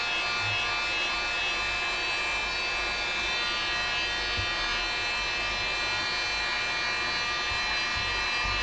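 Electric heat gun running steadily, blowing hot air onto a sheet of EVA foam to soften it: an even motor whine with several steady tones over a rush of air.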